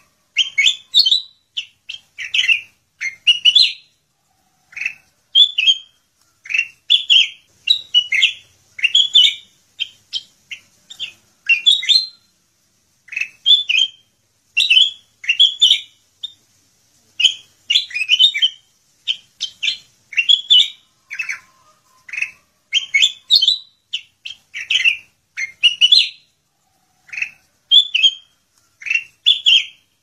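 Kutilang emas (ruby-throated bulbul) singing vigorously: short, bright chirping phrases, one or two a second with brief gaps between them.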